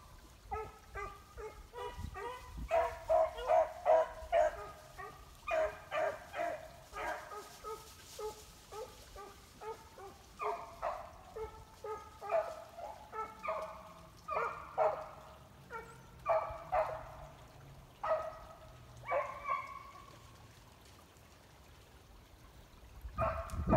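Several beagles baying out of sight, short repeated bays from a few dogs overlapping at different pitches, thinning out and stopping near the end.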